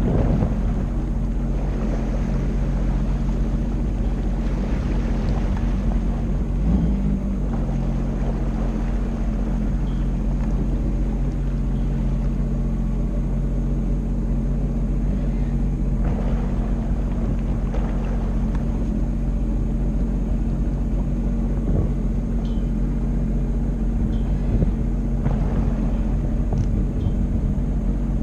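Jet ski engine running steadily at one unchanging pitch, over a broad noisy hiss.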